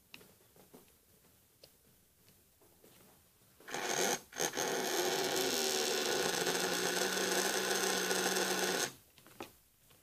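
Small electric motor running at speed for about five seconds with a steady, buzzing whir. It starts about four seconds in, stutters briefly once, then cuts off abruptly. Before it starts there are faint clicks of the motor being handled.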